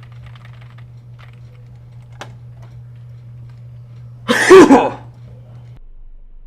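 A person coughing loudly about four seconds in: a quick burst of two or three coughs. Before it there are faint light clicks, and a single sharper click near the two-second mark.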